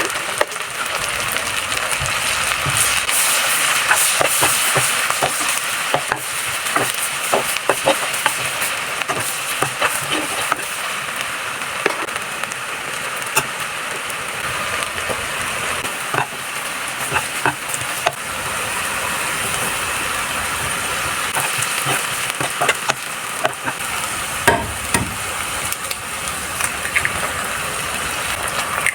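Food sizzling in hot oil in a frying pan, a steady hiss, while a spatula stirs it with frequent short clicks and scrapes against the pan.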